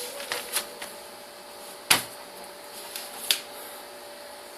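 Tabletop handling noises as a small folding knife and phone-book paper are handled: a few sharp clicks and taps, the loudest about two seconds in.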